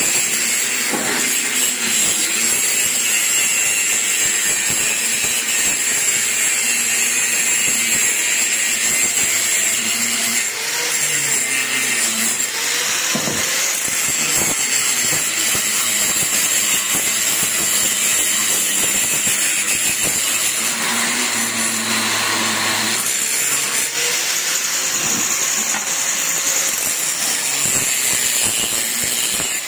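Handheld angle grinder with its disc biting into a curved steel strip, a loud steady high-pitched grinding whine that carries on without a break.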